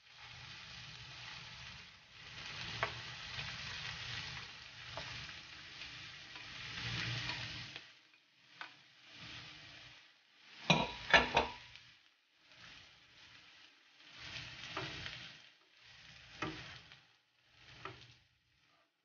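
Bean sprouts dropped into hot oil in a nonstick frying pan with shrimp and tomato, sizzling steadily for about eight seconds. Then a few sharp clacks of a spatula, and short bursts of sizzling as the sprouts are stirred.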